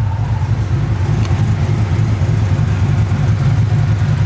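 Pickup truck engine idling with a steady low rumble.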